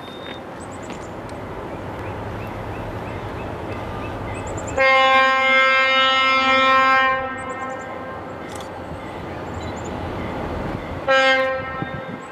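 Approaching diesel freight locomotive sounding its multi-tone air horn: one long blast of about two and a half seconds, then a short blast near the end, over a steady low rumble from the train, in the pattern of a grade-crossing signal.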